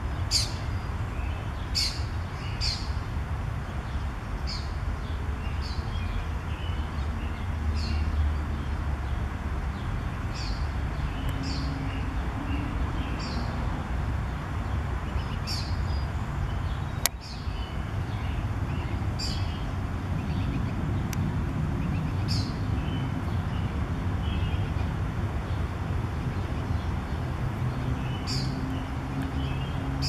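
A songbird giving short, sharp, high-pitched chip calls, one every second or two, over a low steady rumble. One sharp click partway through.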